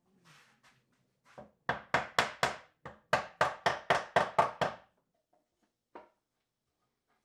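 Wooden mallet knocking down on the end of a wooden bookshelf panel, driving hand-cut dovetail joints together: a quick run of about a dozen sharp knocks, roughly four a second, with one brief pause. A single lighter knock follows about a second later.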